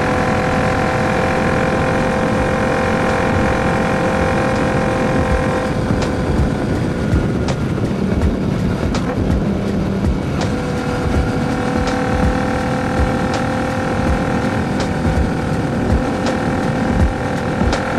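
A 2019 Royal Enfield Continental GT 650's parallel-twin engine runs through a Diablo full exhaust at a steady cruise, with wind noise on the microphone. About six seconds in the engine note drops back for roughly four seconds as the throttle eases, then it returns to a steady pull.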